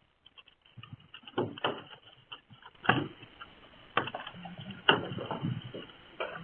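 Hailstones striking hard surfaces: sharp, irregular knocks about once a second with fainter ticks between, heard through a doorbell camera's microphone.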